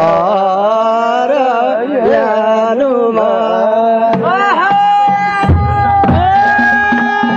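A Nepali folk song: a voice singing a wavering melody over a steady drone. About four seconds in, the melody settles into long held notes.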